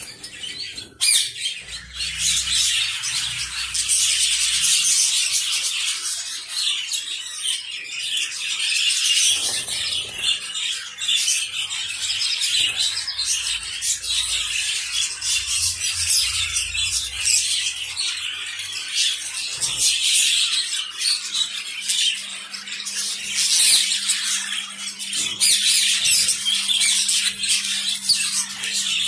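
A cage of Gouldian finches, common and lutino, chirping and chattering without a break. Many short calls from several birds overlap in a dense, high-pitched chorus.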